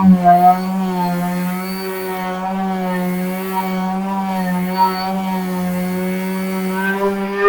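Electric sanding tool with a sandpaper disc sanding log walls, its motor running steadily with a high hum that wavers slightly in pitch as it is pressed against the wood.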